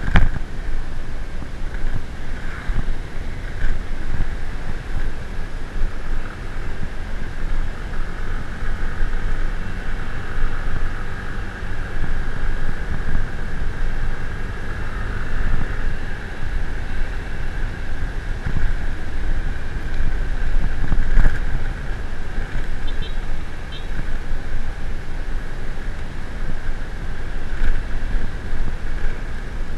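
A vehicle running while travelling, with heavy wind rumble buffeting the microphone throughout.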